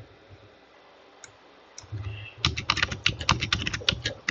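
Typing on a computer keyboard: after a quiet couple of seconds, a quick run of keystrokes, about ten a second, begins about halfway through.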